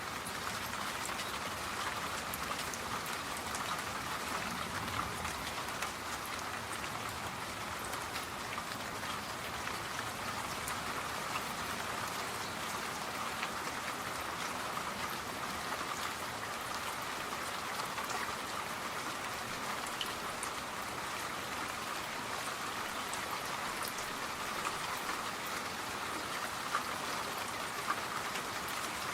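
Steady rain falling, an even hiss peppered with the small ticks of individual drops.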